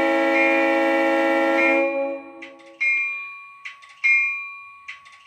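Model diesel locomotive sound from an ESU LokSound XL decoder: the multi-note air horn sounds and stops about two seconds in. Then the locomotive bell starts ringing, a ding with a faint click just before it, about every second and a quarter, three times.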